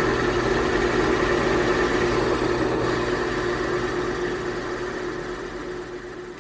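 Electric drill running steadily with a constant motor pitch, drilling a hole into a pool ball; the sound fades out over the last few seconds.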